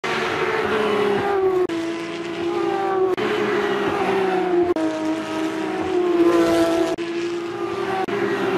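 Porsche 911 GT3 Cup race car's 3.8-litre flat-six engine at racing speed. Its note is broken five times by brief sharp cuts, and the pitch jumps up after each cut and sags in between.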